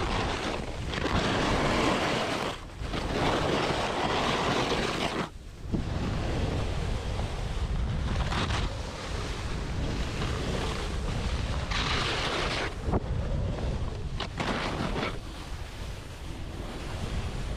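Skis scraping and sliding on firm, wind-rippled snow during a ski descent, coming in surges with the turns, over a steady rumble of wind on the microphone.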